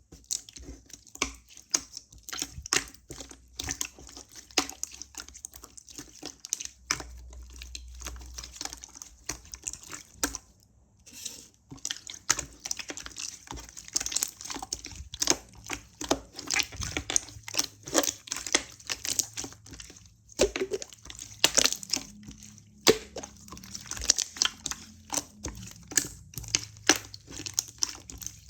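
Clear slime, slightly melted, being squeezed and poked by hand: a rapid, irregular run of sticky clicks and small wet pops, pausing briefly about ten seconds in.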